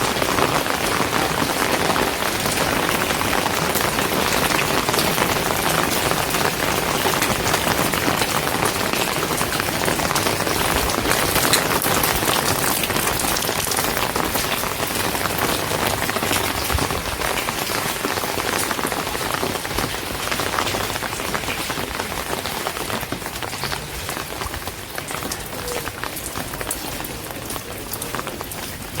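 Steady rain falling on hard surfaces, a dense hiss of many close individual drops, easing off slightly toward the end.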